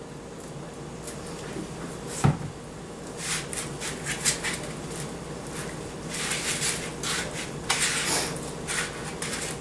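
Gloved hands rubbing sauce over a raw whole chicken on a foam tray: irregular rubbing and handling noises in clusters, with one sharp knock a little over two seconds in.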